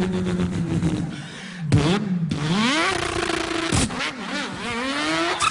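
A man imitating a car engine with his mouth: a held engine note falls away, then revs rise and hold, broken by two sharp cracks like gearshifts or backfires.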